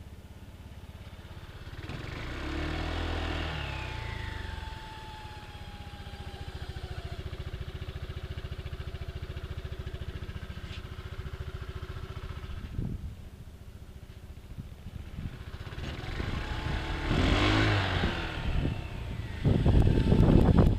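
Engine running through a CVT variator that whistles: a high whistle rises and falls with the revs as the engine is revved twice, with a steadier tone in between. Heavy low thumps come in near the end.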